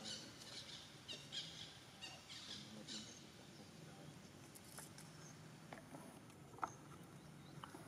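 Faint crinkling and scratching of a paper juice carton as a baby monkey handles and bites it, in short crackly bursts over the first three seconds, then a few isolated sharp ticks.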